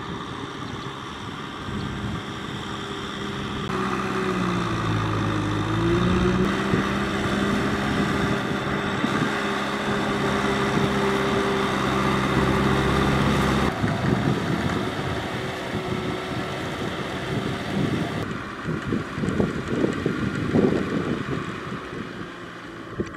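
Kubota M6040SU tractor's four-cylinder diesel engine running steadily under load while it tills the field; about five seconds in the engine pitch sags and then recovers as it lugs. Wind buffets the microphone near the end.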